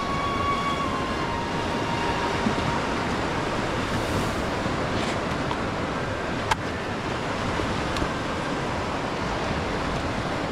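Steady rush of lake waves washing against the pier, with wind on the microphone. A sharp knock comes about six and a half seconds in.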